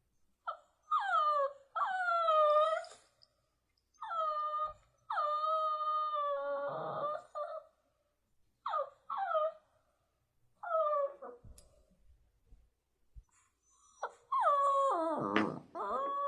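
A dog whining and howling: a series of short yelps that fall in pitch, mixed with longer held howls, with short pauses between the calls.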